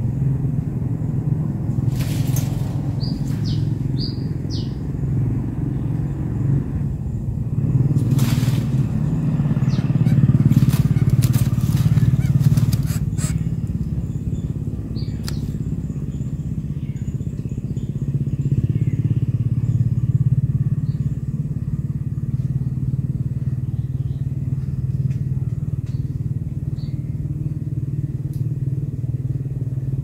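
Steady low drone of a motor vehicle engine running nearby, swelling about ten seconds in. A few short high chirps and some sharp crackles come in the first half.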